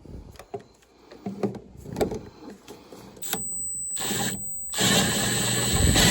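A few handling clicks and knocks, then a small power tool motor, likely a cordless drill/driver, whirring in short runs with a thin high whine. The last run, from about a second before the end, is the longest and loudest.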